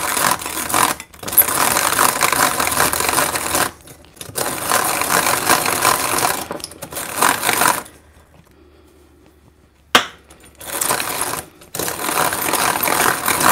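Hand-cranked rotary egg beater rattling in a small bowl as sugar is beaten into eggs. It turns in runs of a few seconds with brief stops and one pause of about two seconds about two-thirds of the way through. The crank is getting harder to turn as the mixture thickens.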